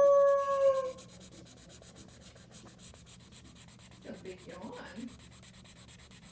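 A dog's long howl, one steady tone that dips and ends about a second in. After it, a felt-tip marker scratches over paper in fast, even back-and-forth strokes, colouring in.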